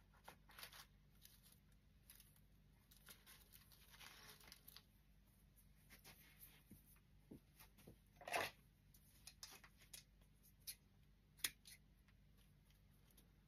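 Faint rustling and small clicks of artificial flowers, twigs and moss being handled and pressed into a grapevine wreath, with one louder rustle about eight seconds in.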